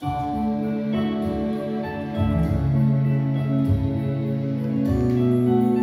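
Instrumental introduction of a song's backing track: held chords starting suddenly, with a deep bass line joining about two seconds in.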